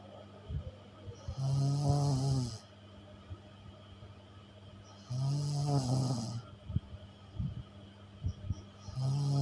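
Snoring in sleep: long buzzing snores about every three and a half to four seconds, three in all, the last starting near the end, with quiet stretches and a few small clicks between.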